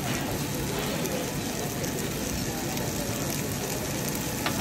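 Steady hiss of udon noodles and vegetables frying in a pan, over steady kitchen hum, with a single sharp click near the end.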